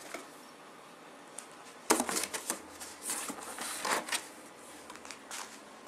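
Cardboard box being handled by hand: a burst of sharp rustles, scrapes and knocks starting about two seconds in and lasting about two seconds, then a single faint click near the end.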